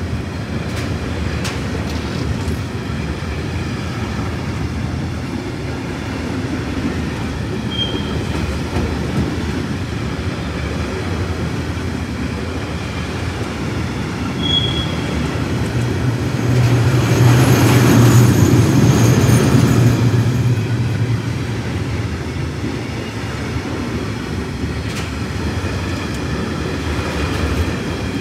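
A freight train of tank wagons rolling past at close range, a steady rumble of wheels on the rails. It grows louder for a few seconds past the middle, with a faint high squeal, and two brief high squeaks come earlier.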